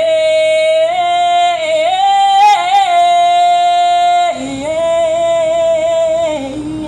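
A woman singing unaccompanied: a long, high held note with a wavering run in the middle, then a step down to a lower held note about four seconds in that fades near the end.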